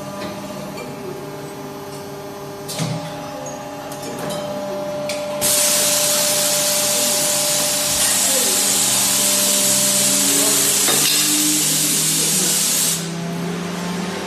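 Die casting machine running with a steady hum of several tones, and a light metallic knock about three seconds in. Then a loud hiss of compressed-air spray starts abruptly about five seconds in, runs evenly for about seven seconds and cuts off.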